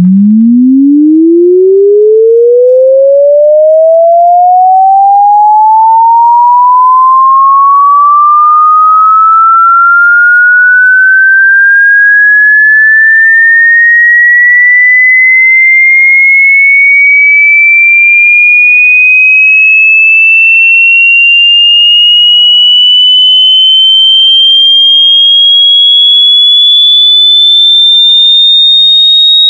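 Sine-wave sweep test tone for burning in speakers or headphones: a single pure tone gliding steadily upward in pitch, from a low hum to a high whistle.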